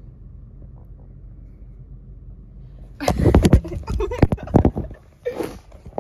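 Phone microphone handling noise inside a car: a low steady rumble for about three seconds, then loud bumps, rubbing and crackle as the phone is grabbed and swung around, with a short rustle near the end.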